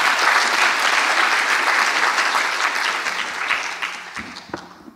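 Audience applauding, full at first and dying away over the last second or two.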